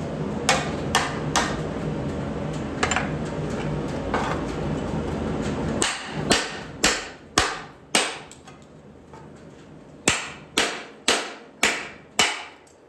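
Hammer blows on the steel of a truck frame, knocking out cut rivets to free a leaf spring hanger bracket: a few spaced strikes, then two quick runs of four or five blows. A steady hiss runs under the first blows and stops abruptly about six seconds in.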